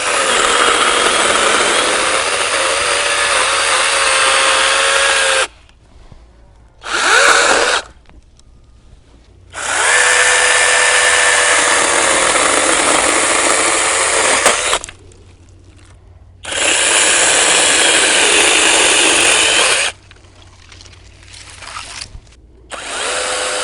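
ORBLON 6-inch brushless battery mini chainsaw cutting a branch: the motor whines in four long runs of about three to five seconds, with a short one-second burst after the first, stopping briefly between each.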